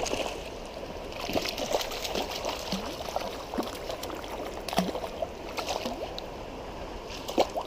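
Creek water running and gurgling, with irregular small splashes from a hooked brown trout being fought at the surface.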